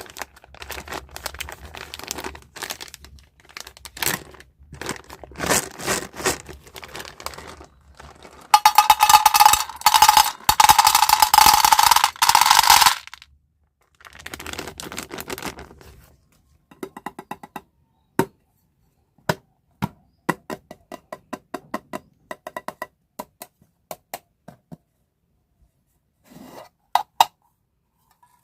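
Plastic candy packaging crinkling and being torn open, with a loud harsh stretch of tearing or scraping for several seconds before the middle. In the second half come a scattered run of small sharp clicks and clinks, like hard candies or small plastic pieces tapping together.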